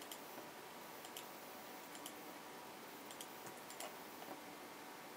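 Scattered light clicks of a computer mouse and keyboard, single and in quick pairs, over a steady background hiss.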